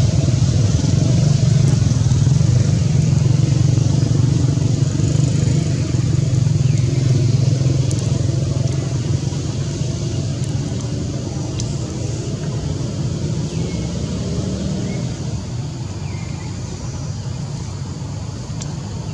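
A low, steady rumble, like a motor running, that slowly fades, with a few faint short high chirps.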